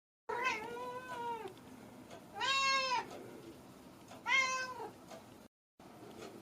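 A cat meowing three times, each meow a drawn-out call that rises and falls in pitch; the second and third are shorter and louder than the first.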